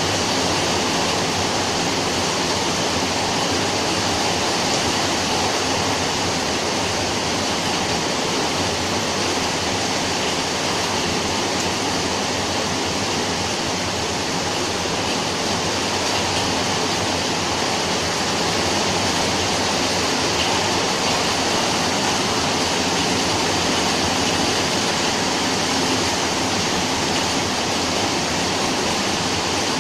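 Rain falling steadily, a dense, even hiss that does not let up.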